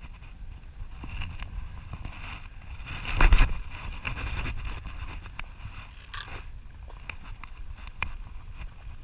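Wind rumbling on the microphone out on open water, with scattered light clicks and a louder rush of noise about three seconds in.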